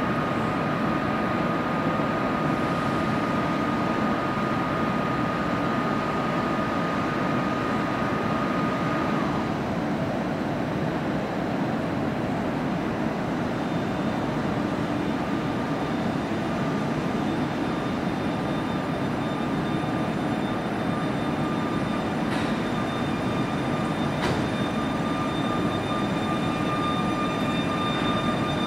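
Newag Griffin EU160 electric locomotive running steadily at the platform with its train, then starting to pull away slowly. About halfway, steady high whining tones join the hum, and two sharp clicks come in the last third.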